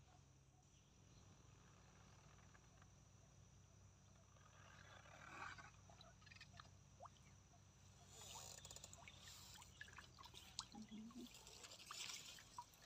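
Water trickling and splashing off the mesh of a bamboo lift net as it is hauled up out of the water. It is faint at first, builds from about four seconds in, and is fuller with small drips and splashes from about eight seconds on.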